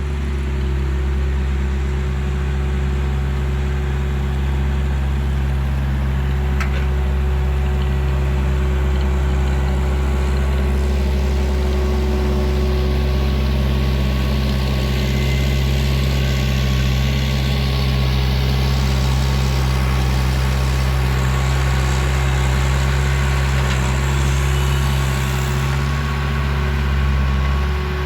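An engine running steadily at an even, unchanging speed, a low drone with no revving, with a little more hiss coming in from about ten seconds in until near the end.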